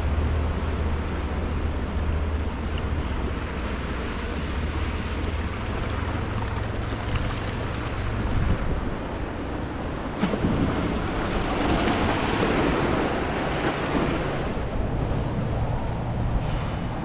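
Gusty wind rumbling over the microphone with choppy river water washing against the bank; a single knock about ten seconds in, then a louder rush of wind and water for a few seconds.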